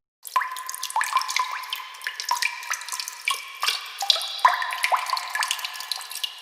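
Water dripping into water: a steady run of irregular drops, each a short rising plink, several a second.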